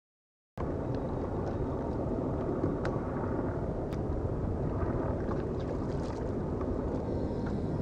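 Wind buffeting the microphone over open water, with light water lapping and a few small splashes against a plastic kayak's hull. It starts suddenly about half a second in.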